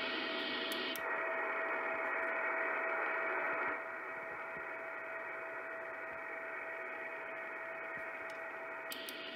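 Icom IC-751 shortwave receiver hissing with band noise in single-sideband mode, with a steady whistle of a carrier beneath the hiss. About a second in, after a click, the hiss turns duller as a narrower filter cuts off its upper part. It drops a little quieter a few seconds later, and near the end a couple of clicks bring the full, brighter hiss back.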